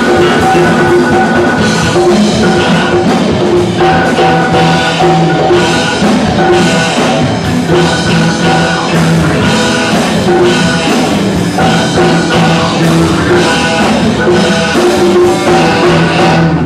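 Live band playing funk/R&B: drum kit, electric guitars, congas and saxophone over a steady beat, with long held notes.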